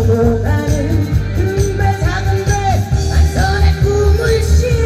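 A woman singing a song live through a PA over an amplified backing track with a steady, heavy bass beat, holding long wavering notes.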